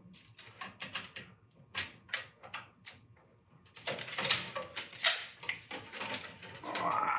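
Scattered clicks and light knocks of a steel tape measure being handled against an empty metal toolchest drawer, busier and louder from about four to five and a half seconds in.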